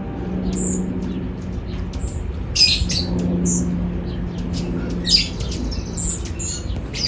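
Small birds giving short, high chirps and squeaky calls scattered through, the loudest a little under three seconds in and again about five seconds in, over a low steady hum.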